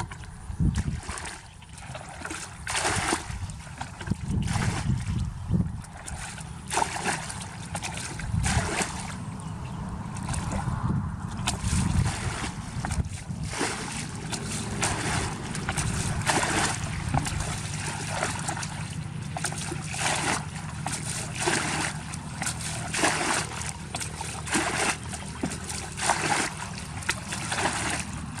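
Water splashing and sloshing in short bursts, about one a second, over a steady low rumble.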